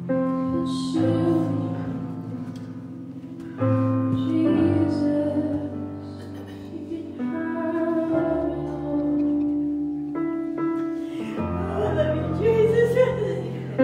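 Slow worship music: long held keyboard chords that change every few seconds, with a voice singing over them near the end.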